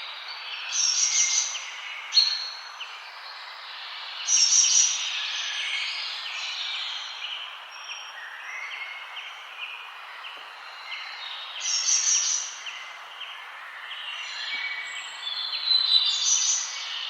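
Many birds singing and chirping at once in a forest chorus, over a steady background hiss. Louder bursts of song come about a second in, around four and a half seconds, near twelve seconds and near the end.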